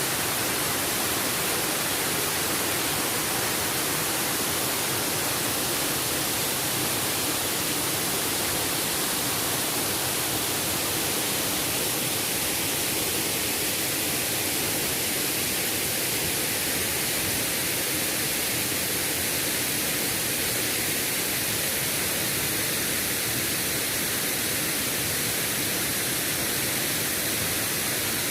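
Waterfall in full flow, heard close up: a steady, unbroken rush of falling water, swollen by recent rain.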